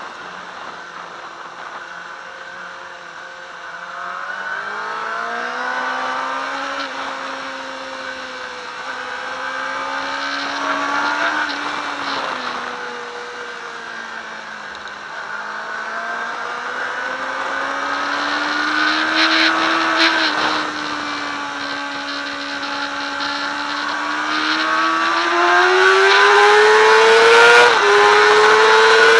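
Sport motorcycle engine at track speed, heard from the bike itself. The revs rise and fall through the corners, then climb steadily over the last few seconds, with a quick dip near the end like a gear change.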